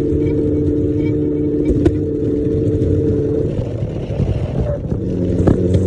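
A vehicle's motor running with a steady two-tone hum. The hum dips about three and a half seconds in, then comes back from about five seconds and rises slowly in pitch. Two short clicks sound over it.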